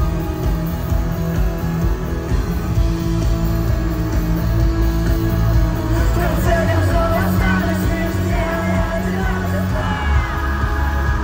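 Live band music played loud over an arena PA, with heavy bass and sustained chords. A voice sings over it from about six seconds in.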